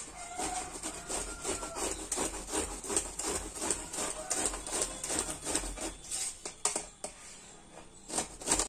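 Peeled bottle gourd being grated on a flat stainless steel grater: repeated scraping strokes at an even rhythm of about three a second.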